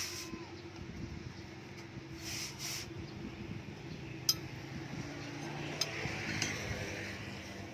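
A few sharp, light clicks or clinks over a low steady hum, the loudest about four seconds in.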